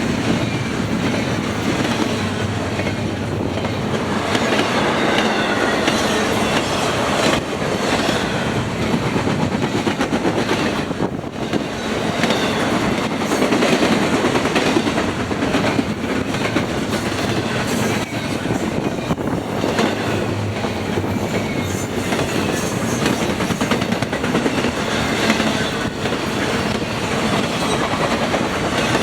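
Norfolk Southern freight train's cars rolling past, a loud steady clickety-clack of wheels over the rails.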